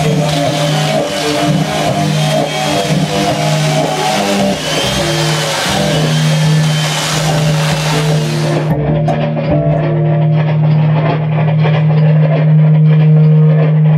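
Chainsaw cutting into a wooden block over a steady low bowed cello drone with scattered short cello notes. About nine seconds in the saw stops suddenly, leaving the cello drone and notes on their own.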